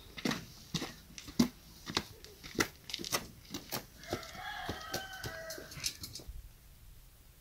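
Footsteps on a hard dirt yard, a run of sharp steps about every half second, with a rooster crowing once, one long call, about four seconds in. Everything cuts off abruptly near the end.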